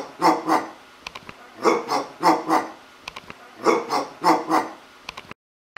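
A man imitating a dog barking through a face mask, in quick runs of about four woofs, three times over. The sound cuts off suddenly near the end.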